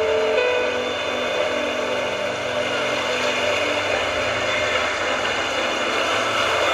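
Backing music for a stage dance coming through a venue's sound system: a few faint held notes under a steady, noisy wash.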